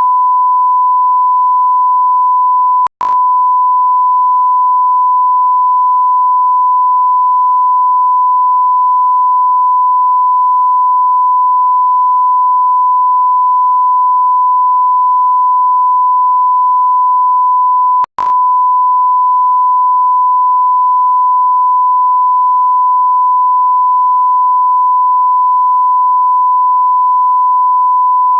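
Continuous electronic beep tone: a single pure, steady pitch of the kind used as a censor bleep or test tone. It breaks off twice for an instant with a click, about three seconds in and again about eighteen seconds in.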